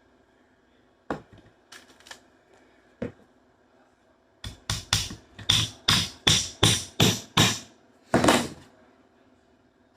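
Hammer nailing soft wood: a few separate taps, then a run of about nine quick blows, roughly three a second, and one longer final knock.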